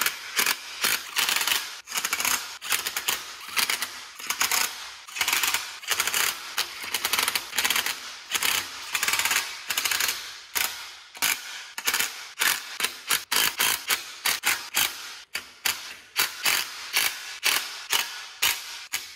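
DeWalt cordless impact driver hammering the oil pan bolts down on a Honda D16 short block, in short bursts of rapid clattering one bolt after another, with brief pauses between.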